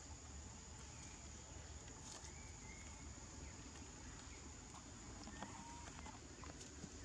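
Quiet outdoor background: a steady faint high-pitched whine with a few faint short chirps and light ticks.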